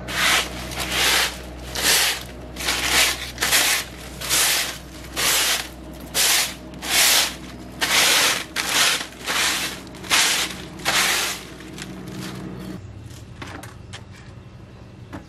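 A straw broom sweeping a concrete floor in about fifteen quick, scraping strokes, a little more than one a second. The strokes stop a few seconds before the end, leaving a low steady hum.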